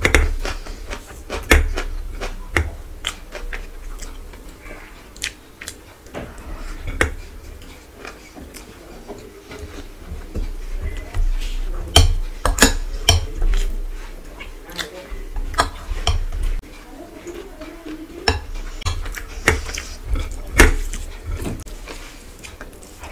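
Hand-eating sounds: fingers mixing rice on a plate and tearing meat from a whole cooked chicken, with scattered sharp clicks and clinks against the dishes, and chewing.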